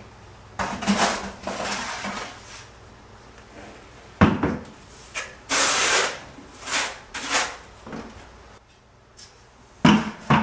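Notched trowel scooping tile mortar from a plastic bucket and scraping it across the hearth in a series of uneven strokes, with a sharp knock about four seconds in and two sharp knocks near the end.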